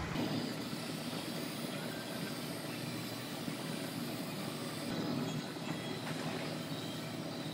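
Aerosol spray can hissing as it sprays a coating onto sheet metal, over a steady background rumble.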